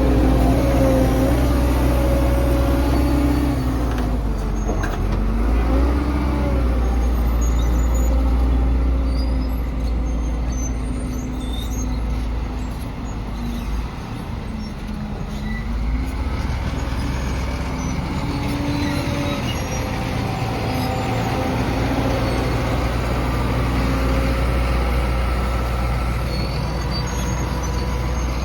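Engine of a heavy construction machine running under load, its pitch rising and falling as it revs, over a steady low rumble.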